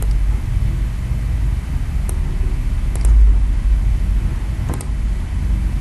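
Steady low rumble of background noise on the recording, with a few short computer mouse clicks at about two, three and five seconds in as formatting is applied with the Format Painter.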